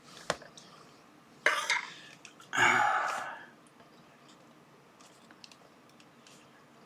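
Soft scattered key clicks from typing on the keypad of a Brother P-Touch D210 label maker. Two short breathy bursts come about a second and a half in and near three seconds in; the second is the louder.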